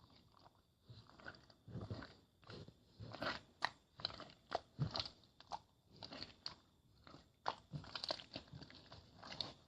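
Crisp food being bitten and chewed: a run of irregular crunches, one or two a second.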